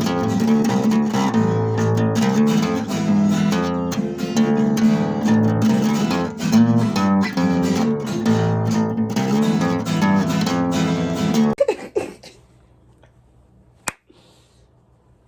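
Music with plucked, strummed guitar that cuts off suddenly about three-quarters of the way through, leaving a faint hum and a single sharp click near the end.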